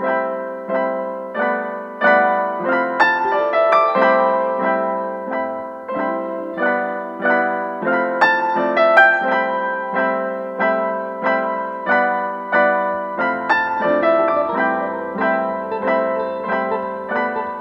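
Background piano music: a melody of struck notes that ring and die away, at an even pace, with a low bass note joining about three-quarters of the way through.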